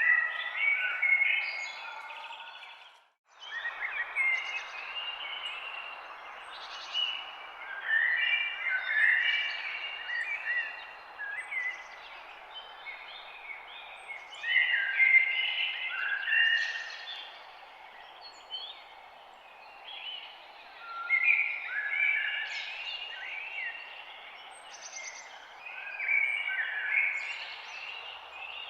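Several songbirds chirping and singing in overlapping short phrases over a steady background hiss, with a brief gap of silence about three seconds in.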